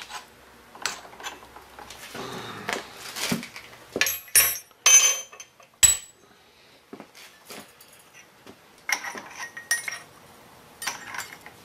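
Steel tools and a drill bit being handled at a milling machine during a drill change: scattered metal clinks and knocks, loudest in a cluster of sharp ringing clinks about four to six seconds in.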